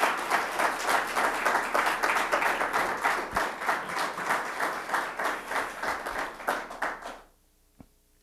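Audience applauding, the clapping fading away about seven seconds in.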